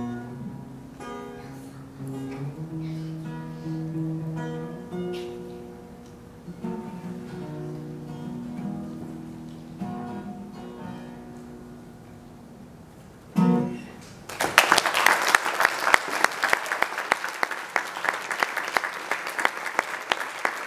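Acoustic guitar playing slow, ringing picked notes and closing on a final strummed chord about two-thirds of the way through. An audience then breaks into applause, louder than the guitar, which runs on to the end.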